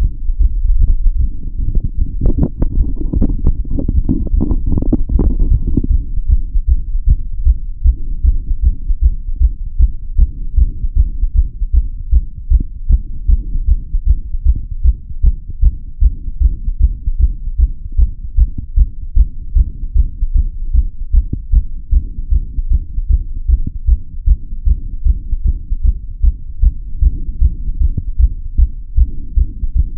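Human heartbeat heard through a stethoscope: a steady, regular train of low, muffled thumps. A louder, scratchier noise sits over the beats from about two to six seconds in.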